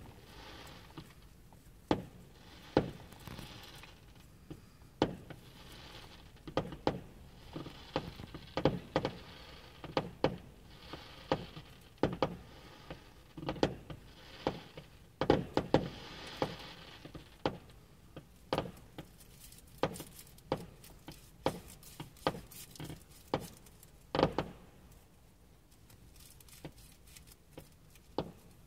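Fireworks going off: a long irregular string of sharp bangs, often several within a second, with a fizzing crackle between them at the busiest moments. The bangs come thickest in the middle and thin out near the end.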